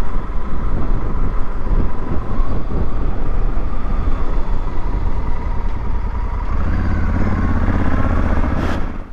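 Motorcycle engine running on the move, with a steady rush of wind over the microphone. The engine note grows stronger about seven seconds in, then the sound drops away sharply near the end.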